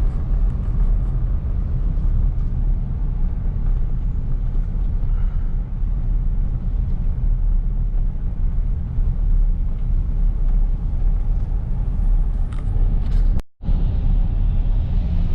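Pickup truck driving down a road: a steady low rumble of engine and road noise. The sound cuts out for an instant near the end, then carries on the same.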